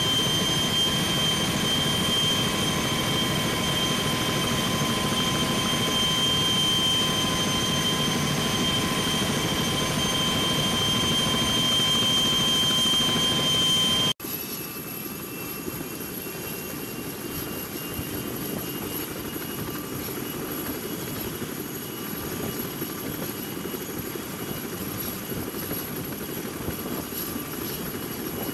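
CH-46E Sea Knight tandem-rotor helicopters running, a steady noise with a high whine over it. The first half is loud, heard from aboard an aircraft in formation flight. About halfway it cuts to a quieter, steady helicopter whine and rotor noise with the aircraft on the ground.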